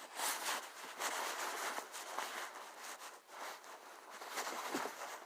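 Soft rustling and handling noise, with scattered small ticks and scrapes, as clothing and a pocket are searched by hand for an item.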